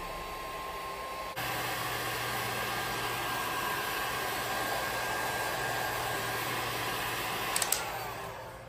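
Heat gun blowing steadily, as for shrinking heat-shrink tubing over speaker-wire joints; it gets louder about a second and a half in and fades away near the end, with a few clicks as it dies down.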